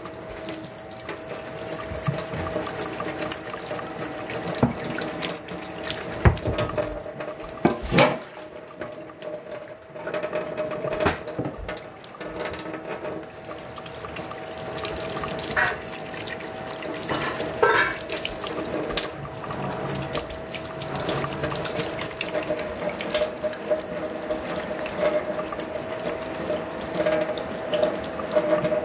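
Kitchen faucet running into a stainless steel sink as hands are rinsed and rubbed under the stream. A few sharp knocks come in the middle, over a faint steady hum.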